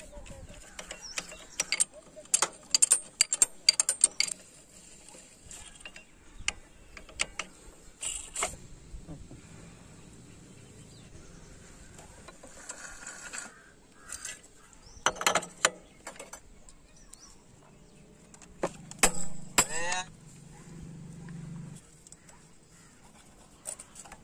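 Metal hand tools clicking and clattering against a Hero Honda Passion Pro's clutch assembly as parts are fitted and tightened. The sound comes as bursts of sharp clicks, several in quick succession in the first few seconds, with further bursts midway and a louder one near the end.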